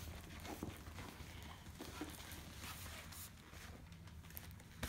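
Faint, scattered soft taps and rustles over a low steady hum.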